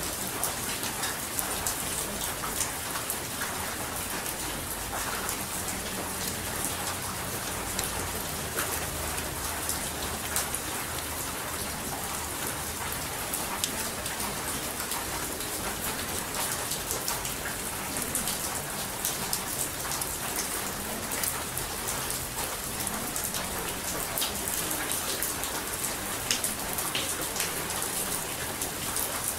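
Steady rain falling, with many small drop ticks.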